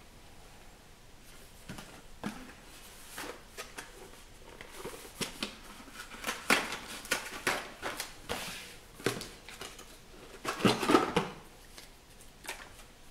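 A Tassimo T-disc cardboard box being handled: its inner tray slid out and plastic T-discs taken from it, a run of irregular scrapes, rustles and light knocks that grows busier and is loudest near the end.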